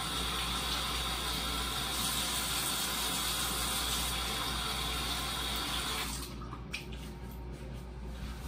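Bathroom sink faucet running, its water splashing into the basin, then turned off about six seconds in, followed by a few light clicks and knocks.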